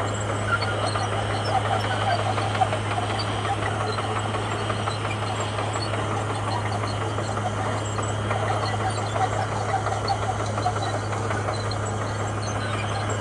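Komatsu bulldozer running steadily: a constant low engine hum with a dense crackling rattle over it.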